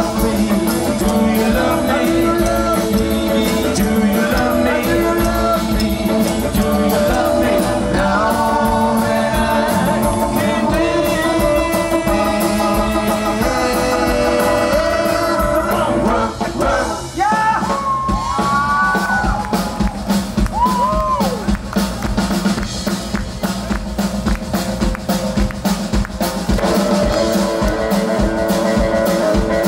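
Live rock and roll band playing, with drum kit, electric guitar and upright double bass.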